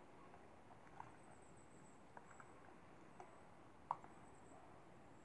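Near silence with a handful of faint, short clicks scattered through it, the loudest about four seconds in, and a faint high whine that comes and goes.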